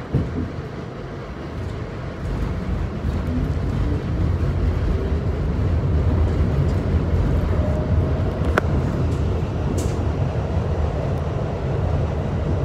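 Steady low rumble of a New York City subway train running, heard from inside the car, growing louder over the first few seconds, with a faint whine rising slowly in pitch as the train gathers speed. A sharp click about eight and a half seconds in.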